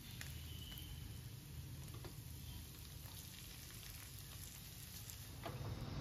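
Croissants frying in a grill pan: a faint, even sizzle of hot fat with a few small pops.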